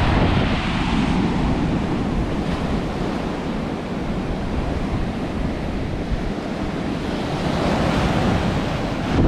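Strong sea surf breaking and washing up a sandy beach, a steady rushing wash that eases a little mid-way and builds again near the end, with wind buffeting the microphone.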